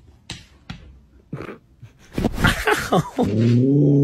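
Dog howling: about two seconds in, a rush of yips and yowls sliding down in pitch, then one long, drawn-out howl held for about a second and a half that swells and dies away.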